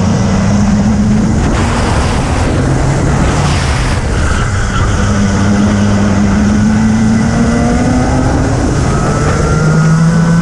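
Racing kart engine at full race pace, recorded on board. Its pitch drops about two seconds in and again near nine seconds as the kart slows for corners, and climbs steadily in between as it accelerates.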